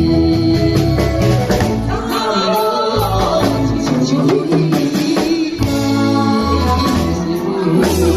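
A man singing an enka-style song over instrumental backing music. His gliding voice comes in about two seconds in and drops out again after about five seconds.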